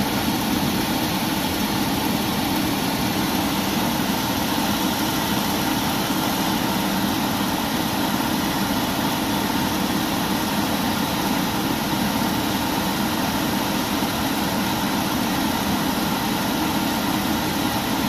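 Gas furnace blower motor running steadily, a constant rush of air with a low hum. This is the blower's 90-second run that a previous fault code triggers at power-up, before the board sends power to the inducer motor.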